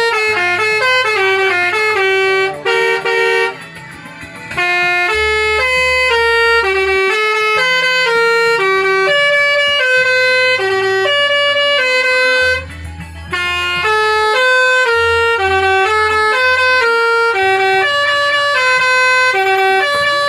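Basuri musical bus horn playing a tune of held notes, one after another, stepping up and down in pitch, with a couple of short pauses.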